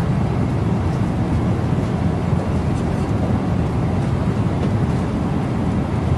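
Steady jet airliner cabin noise in flight: an even low rush of engines and airflow.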